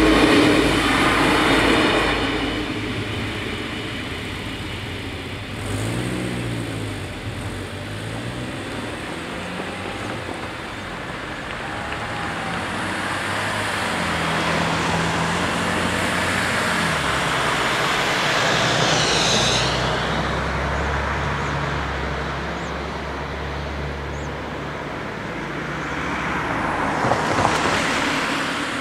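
An Alstom LINT 81 diesel multiple unit finishes passing over a level crossing, its rumble fading out within the first two seconds. Then road traffic drives across the crossing, with car engines rising and falling in pitch as they pull away, and one car passing close near the end.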